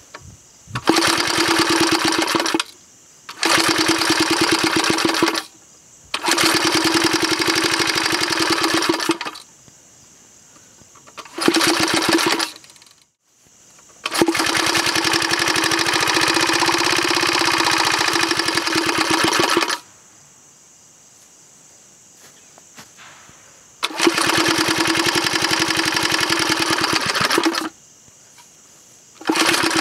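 Small single-cylinder piston-valve gasoline engine firing in a series of short runs. There are about seven bursts of rapid, even firing, from one to six seconds long, and each one cuts off abruptly. The engine is finicky about its fuel mixture and will not run on steadily.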